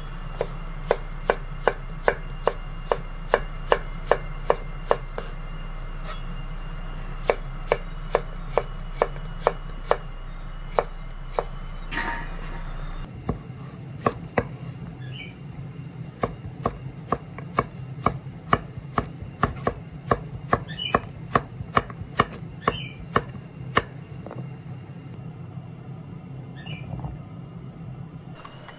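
Kitchen knife slicing cucumber on a wooden cutting board: sharp, regular knife strikes on the board, about two a second, with a couple of short pauses.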